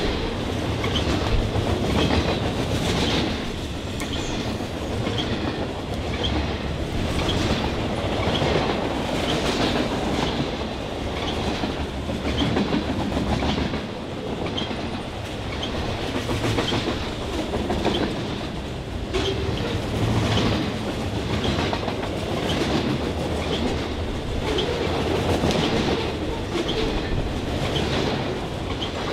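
Freight train cars, loaded pulpwood cars and boxcars, rolling past with their wheels clicking over the rail in a steady clickety-clack rhythm. Short high-pitched wheel squeaks recur among the clicks.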